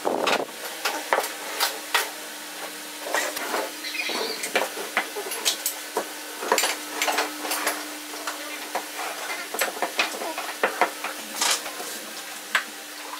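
Wooden pieces knocking and clacking as a slatted folding wooden dish rack and a wooden utensil caddy are handled, unfolded and set down on a wooden workbench: many light, irregular taps and clicks over a steady low hum.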